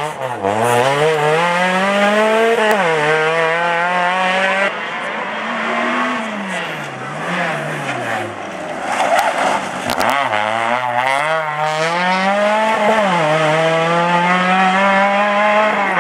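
Rally car engine accelerating hard, the pitch climbing and then dropping sharply at a gear change, twice. In the middle it falls and rises as the driver lifts off and brakes, then picks up again.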